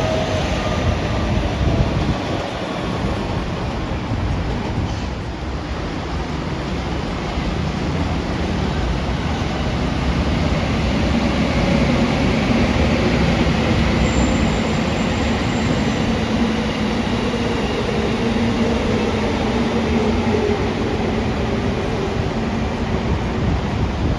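A train running past, a steady loud rumble with faint whining tones that slowly shift in pitch.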